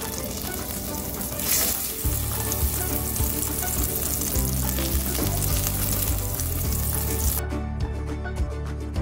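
Butter sizzling as it melts in a hot stainless steel sauté pan while it is pushed around with silicone-tipped tongs. The sizzle cuts off suddenly about seven seconds in. Background music with a low bass line comes in after about two seconds.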